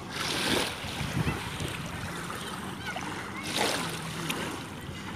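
Small sea waves washing and splashing over a shallow shore, with two louder surges of hiss: one just after the start and one at about three and a half seconds. Faint short chirps sound through the wash.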